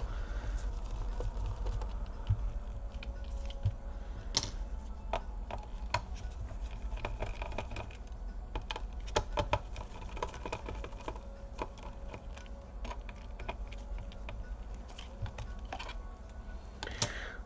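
Irregular small clicks, taps and scrapes of plastic and metal as screws are undone with a small hand screwdriver and the back covers of an HP EliteBook 2530p laptop are lifted off. One click about four seconds in is louder than the rest, and a steady low hum runs underneath.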